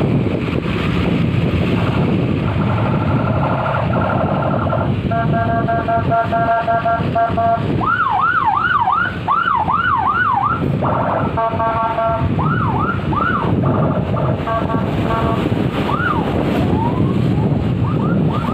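A multi-tone vehicle horn sounds held chords in bursts, alternating from about a third of the way in with a fast whooping siren that sweeps up and down about three times a second. Engine and road noise run underneath.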